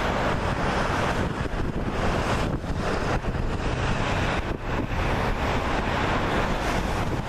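Twin turbofan engines of a Cessna 560XL Citation Excel on landing, a steady rushing jet noise, with wind buffeting the microphone.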